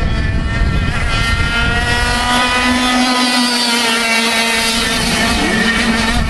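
A 100cc two-stroke kart engine running at speed, its high, buzzing note climbing a little over the first couple of seconds and then holding steady.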